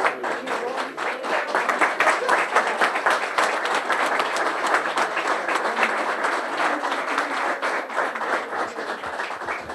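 Applause from a room of standing people, many hands clapping unevenly, with a few voices underneath; it thins out near the end.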